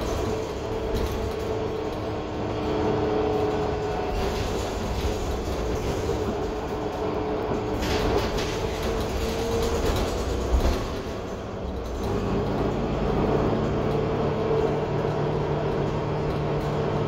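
Inside a 2021 Gillig Low Floor 40-ft transit bus under way: its Cummins L9 diesel and driveline running with steady road rumble and a wavering whine. A brief thump comes about ten and a half seconds in, and a lower hum comes up about twelve seconds in.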